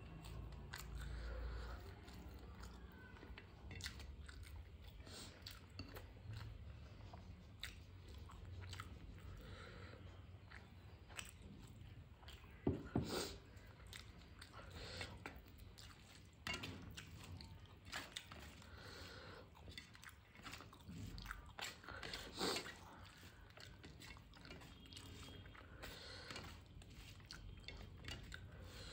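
Close-miked chewing and wet mouth clicks and smacks of someone eating rice with dal and fish curry, along with fingers squishing and mixing rice on a steel plate. Two louder clicks stand out, about halfway through and again about two-thirds of the way in.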